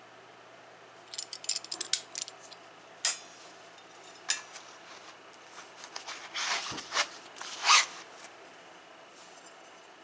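Metal hose pinch pliers being handled: a run of quick clinks and clicks, two single sharp clicks, then a short scrape and clatter.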